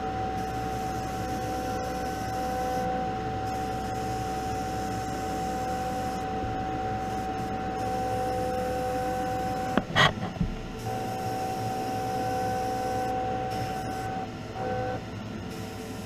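Spray-booth exhaust fan running with a steady hum and whine, and a sharp knock about ten seconds in.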